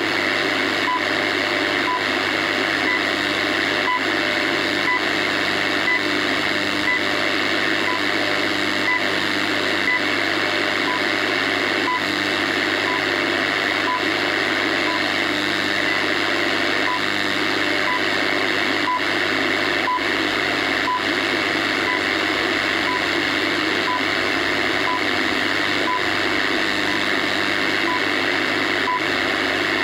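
Shortwave radio receiving the WWV time signal on 15 MHz: a short, high tick once every second over steady static hiss.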